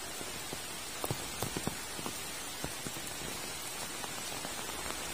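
Steady rain falling, with a few louder single drops striking close by, several of them between about one and two seconds in.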